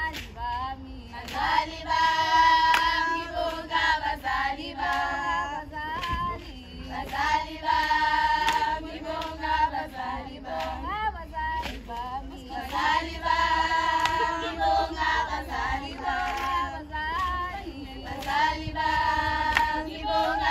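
A group of girls and young women singing a traditional song together in chorus, with sharp percussive beats throughout.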